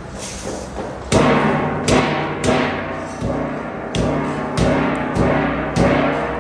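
Large stainless steel basin knocked hard against the rim of a big cast-iron plov kazan about seven times at uneven intervals. Each knock is a heavy metallic clang that rings briefly.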